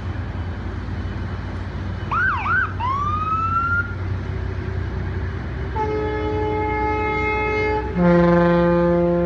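Fireboat siren whoops: three quick up-and-down swoops and one longer rising whoop about two seconds in. Then boat horns sound: one steady horn from about six seconds, joined by a louder, deeper horn from about eight seconds that holds, over a steady low rumble.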